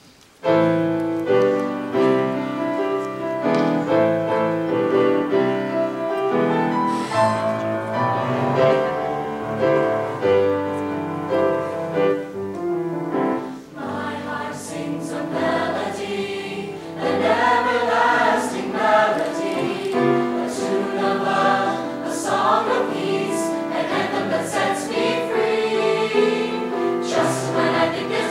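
Mixed teenage choir singing, with piano accompaniment, starting about half a second in.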